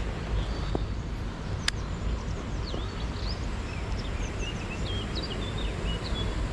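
Small birds chirping in short, high notes over a steady low rushing of wind and flowing river water, with one sharp click about two seconds in.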